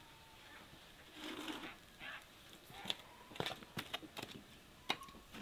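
Split firewood in a wheelbarrow being handled, giving a few faint scattered clicks and light wooden knocks, most of them in the second half.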